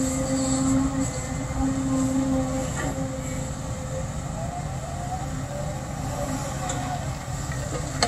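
Caterpillar hydraulic excavator loading a dump truck: a steady diesel engine drone, with a humming tone that comes and goes as the hydraulics work the boom and bucket.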